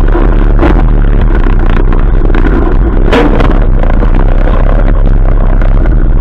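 ATV engine running very loud and steady while riding over a rough dirt trail, with rattling and one sharp knock about three seconds in.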